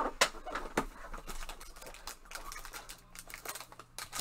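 A sealed trading-card box being opened by gloved hands: its plastic wrap and cardboard crinkling and rustling in a run of quick crackles, busiest in the first second or so.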